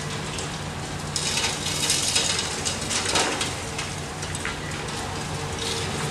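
High-reach demolition excavator at work: its diesel engine runs steadily while concrete and masonry crunch and clatter down for about two seconds, starting about a second in.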